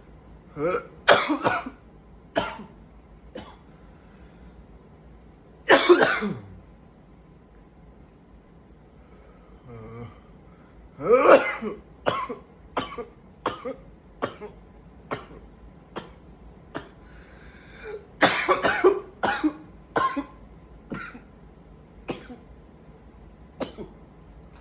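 A man coughing in repeated fits: clusters of sharp coughs with single coughs between them, and a faint low groan about ten seconds in, between fits.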